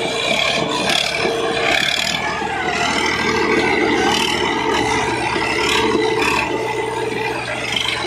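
Swaraj tractor diesel engines running hard under heavy load as one tractor drags the other in a tug-of-war, with tyres scrubbing on the paved road.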